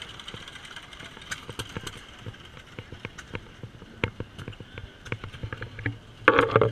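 Antique stationary gas engines running, with short irregular exhaust pops and knocks a few times a second over a low hum. A brief loud burst comes near the end.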